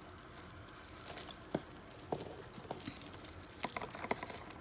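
Hands rummaging through a cardboard box of costume jewelry: faux-pearl beads, metal chains and trinkets clicking and rattling against each other in small irregular clicks.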